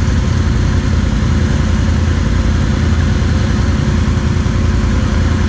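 Quad (ATV) engine running at a steady speed, loud and close, with no revving up or down.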